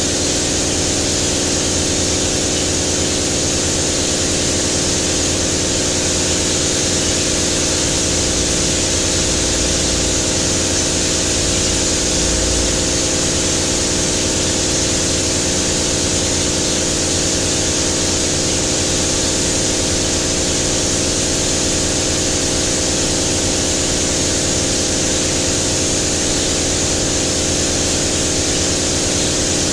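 Spray gun hissing steadily as it sprays silver paint onto a bus bumper, over a steady machine hum with several low tones.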